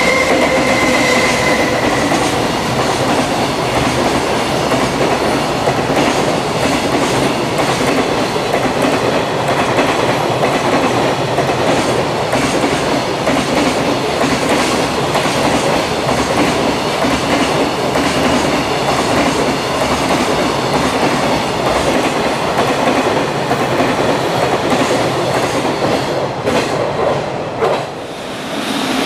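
Freight container train behind an EF210 electric locomotive passing: a continuous rumble of wheels with rapid clatter as the container wagons cross the rail joints. A steady tone sounds for the first two seconds, and the noise drops about 28 seconds in as the last wagon goes by.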